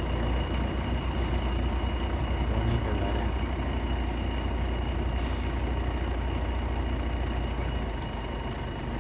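Steady low rumble of outdoor background noise, with a faint steady high tone throughout.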